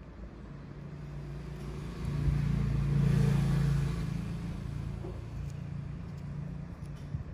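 A road vehicle's engine going past: a low hum that grows louder to a peak about two to four seconds in, then fades away.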